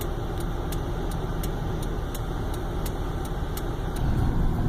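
Inside a car: steady low engine and road rumble, with a light regular ticking about three times a second that stops about four seconds in as the rumble grows louder.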